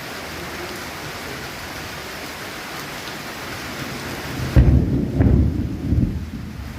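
Steady heavy rain, then about two-thirds of the way through a loud, low rumble of thunder breaks in and dies away, the rain's hiss dropping back as it comes.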